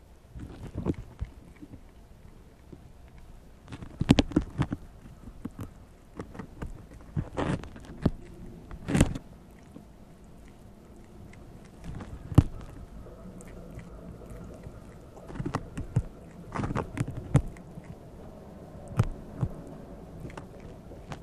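Prairie dog tearing and biting at the green husk of a whole ear of corn: irregular crisp crackles and rips in short clusters, with quiet gaps between them.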